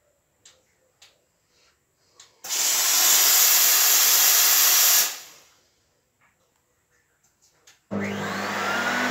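Steam-vacuum cleaner releasing a loud, even hiss of steam through its upholstery nozzle for about two and a half seconds, which then fades away. Near the end its vacuum motor switches on suddenly and spins up with a rising whine.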